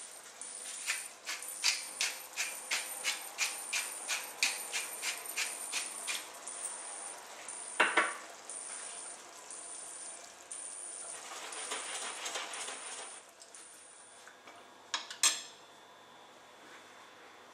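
Chicken pieces simmering in lemon sauce in a stainless steel pan: a steady high sizzle with a run of popping bubbles, about two to three a second, for the first several seconds. A single sharper knock comes about eight seconds in, and two more near the end.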